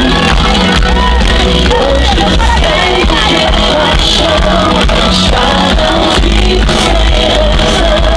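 Live pop concert: a male singer singing into a handheld microphone over a full band with drums and acoustic guitar, loud and continuous through the stage sound system.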